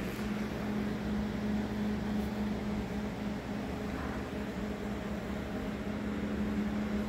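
Steady mechanical hum: a constant low tone over an even hiss, with no change in level.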